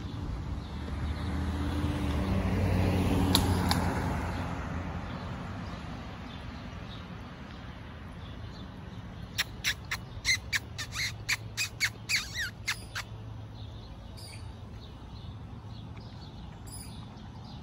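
A vehicle goes past, swelling and fading over the first few seconds. About nine seconds in, an animal in the tree gives a quick run of about a dozen short, sharp calls lasting some three seconds.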